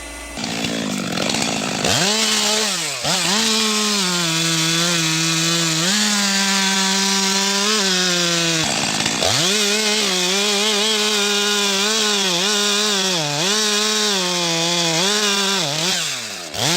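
Chainsaw running at high revs while cutting wood. Its pitch wavers under load and falls away sharply, then picks back up, about four times.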